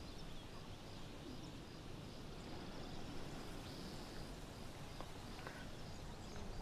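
Faint outdoor ambience: a steady low background hiss with faint, short, high-pitched chirps recurring now and then.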